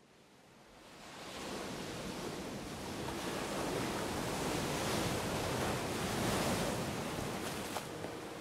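Ocean surf washing up a sand beach, fading in over the first second or so and swelling to a steady rush of breaking, foaming water.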